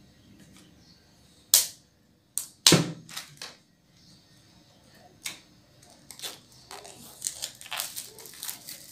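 A few sharp clicks and knocks of hard objects handled on a tabletop, the loudest about a second and a half to three seconds in, then from about six seconds thin plastic shrink wrap crinkling as it is picked at and peeled off a cardboard tube box.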